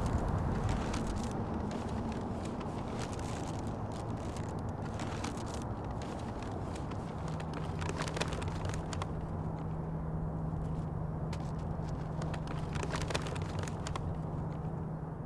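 Brown paper bag crinkling and rustling in irregular crackles as it is opened and rummaged through, over a steady low rumble; a low steady hum joins about halfway through.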